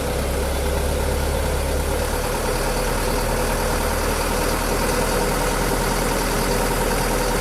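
Truck engine idling steadily at a raised speed of about 1,200 RPM, set with the idle adjuster so the engine can drive the Topre refrigeration unit's compressor while the box cools down.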